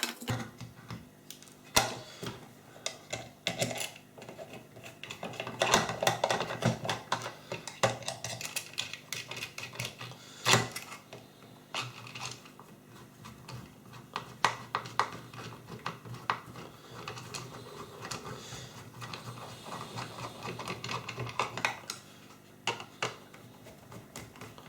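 Irregular clicks, taps and knocks of small plastic and metal parts being handled and worked on a bench, with a few louder knocks among them.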